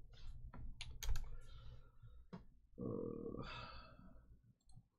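Computer keyboard typing: a quick run of key clicks over the first two seconds, then a brief low hum about three seconds in.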